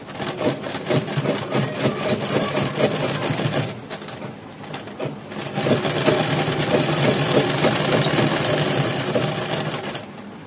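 Sewing machine stitching a side seam through fabric in two runs: about four seconds, a short pause, then about five seconds more before it stops.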